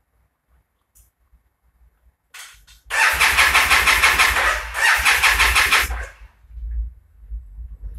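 Yamaha TDM850 parallel-twin motorcycle engine cranked on the electric starter, an evenly pulsing churn for about three seconds from around three seconds in, with a brief break partway, then a low uneven rumble as it fails to catch. The engine is hard to start; the owner reports it sneezing back through the carburettor.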